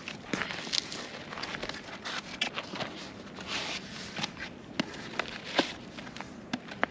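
Large cardboard box being handled and opened: cardboard flaps and paper inside crackling and rustling, with many scattered sharp clicks and taps.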